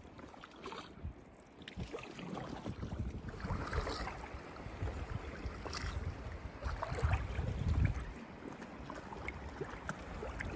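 Paddles splashing and water lapping around an inflatable kayak under way, with wind rumbling on the microphone.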